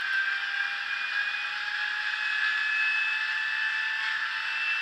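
Sound-decoder recording of a Class 70 diesel locomotive engine, played through a tiny speaker in an N gauge model, with its engine note rising slowly and steadily in pitch as it runs up. The sound is thin, with no bass.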